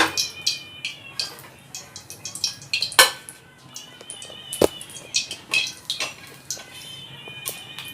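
Irregular sharp clinks and knocks of kitchen utensils, with short high chirps of birds over them.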